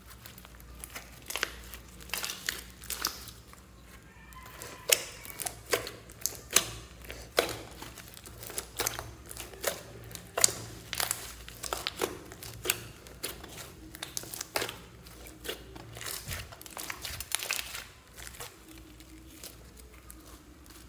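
Clay-mixed slime studded with foam beads being kneaded and stretched by hand: a run of irregular sticky pops and clicks, dying down near the end.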